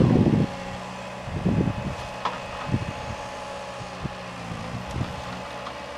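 Ponsse forest harvester's diesel engine running steadily with an even hum, and a sharp click about two seconds in. Low wind rumble on the microphone at the start, with a few weaker gusts after.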